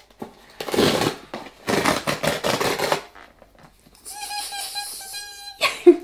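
A parcel's packaging being torn open by hand: two bursts of rough crackling tearing, the second longer. About four seconds in, a fainter steady tone with a high hiss lasts for about a second and a half.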